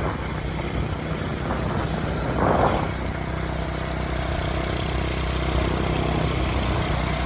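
A vehicle driving along a road: steady engine hum and road noise, with a brief louder rush of noise about two and a half seconds in.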